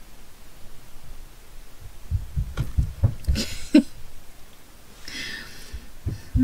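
Hand-work sounds while stitching hemp twine with a needle: a quick run of soft low thumps between about two and four seconds in, and two short rustling hisses.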